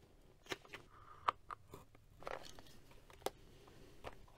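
Craft knife cutting a strip of scrap lining fabric on a cutting mat: a scatter of light clicks and taps as the blade and material are handled, with a short scraping cut about two seconds in.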